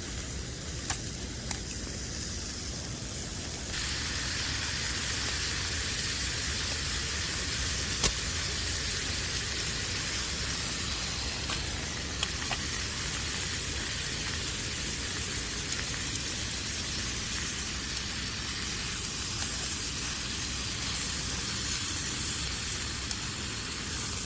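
Small wood fire burning with a steady hiss and scattered sharp crackles; the hiss steps up in level about four seconds in.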